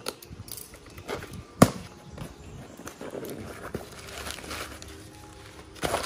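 Cardboard box and plastic wrapping handled and pulled open by hand: crinkling and rustling with scattered knocks, the sharpest about one and a half seconds in and another loud handling noise near the end.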